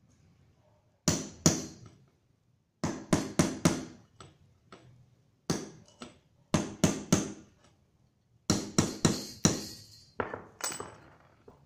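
Hammer tapping needle bearings into a motorcycle's suspension linkage: sharp metal-on-metal strikes with a short ring, coming in quick runs of two to five, about seventeen in all.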